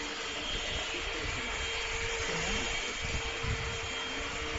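Cordless stick vacuum cleaner running steadily: rushing air with a steady hum and a fainter high whine from its motor.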